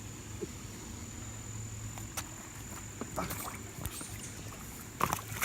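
Faint steady flow of shallow water over rocks, with a few scattered knocks and scuffs of footsteps on wet rock and a couple of louder scrapes near the end.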